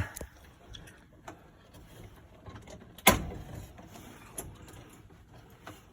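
Faint clicks and handling noises, with one sharp knock about three seconds in.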